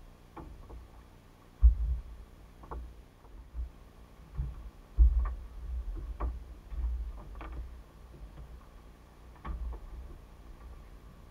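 Irregular dull thumps and knocks on a small fibreglass boat's deck and hull as the angler shifts his weight, steps about and handles his rod, the loudest about two seconds in and again about five seconds in, with scattered light clicks in between over a faint steady hum.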